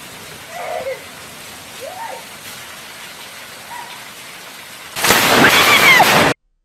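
Heavy rain falling on a lawn, with water pouring from a roof spout. About five seconds in, a lightning strike very close by lets out a sudden, very loud crack that lasts over a second, then the sound cuts off.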